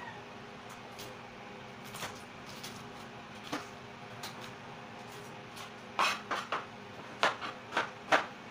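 Kitchen knife cutting a red onion on a cutting board: a few scattered taps at first, then from about six seconds in a run of sharp chops, roughly three a second.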